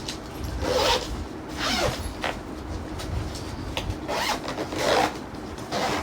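Zipper on a new suitcase being pulled in several short strokes, each a brief rasp.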